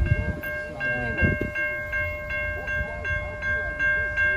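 Railway level-crossing warning bell ringing rapidly and evenly, about two and a half strokes a second, while the boom gate lifts. A low rumble and faint squeals run underneath.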